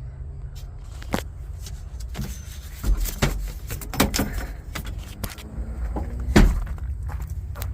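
Irregular clicks and knocks of parts and panels being handled and moved inside a car's interior, the loudest knocks about three, four and six seconds in, over a steady low hum.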